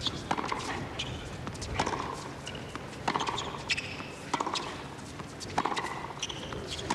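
Tennis rally on a hard court: sharp racket strikes on the ball about every second and a half, with short shoe squeaks between them.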